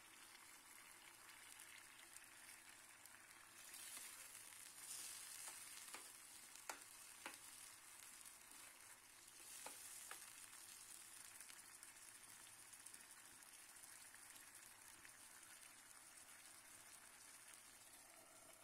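Meat and potato curry sizzling and simmering in a wok as it is stirred with a metal spoon; the sizzle swells twice while the food is turned over, and the spoon clicks against the pan a few times.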